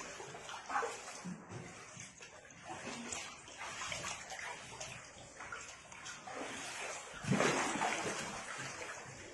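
Shallow floodwater splashing and sloshing, with uneven small splashes and one louder splash about seven seconds in.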